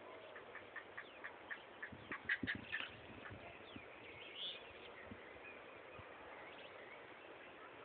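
A duck quacking in a run of short calls, about two a second at first, then quicker and louder about two seconds in before stopping. A single higher call follows a little later.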